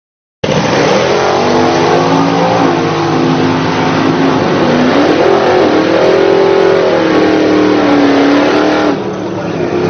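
A 1969 Ford Mustang Mach 1's V8 engine revving, its pitch rising and falling several times. Near the end it drops back to a lower, steadier running note.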